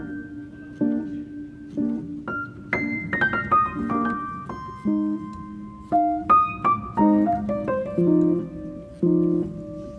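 Background piano music: separate notes and chords that ring and fade, with a quick run of notes about three seconds in.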